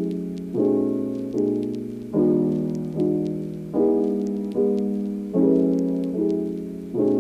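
Background piano music: soft chords struck about every 0.8 seconds, each fading before the next.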